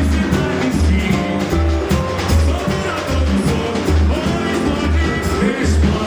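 Samba-enredo music: voices singing a melody over a band, with a steady low beat about every 0.8 seconds.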